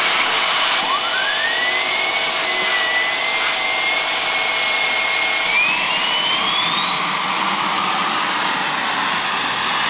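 Homebuilt LPG-fuelled gas turbine made from a Saab car's turbocharger, starting and spooling up: a steady rushing noise with the turbo's whine rising about a second in, holding level, then climbing steadily higher from about five seconds in.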